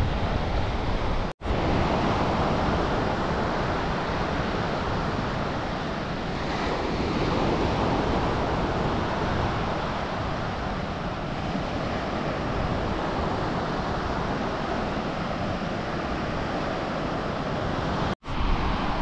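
Sea surf breaking and washing up a stony beach, a steady rushing wash, with wind on the microphone. The sound cuts out for an instant twice, once near the start and once near the end.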